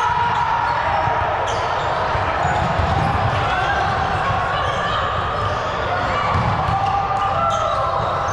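Game sounds in a gym during an indoor volleyball match: a ball thudding on hands and floor, shoes squeaking and players calling out, all echoing in the hall.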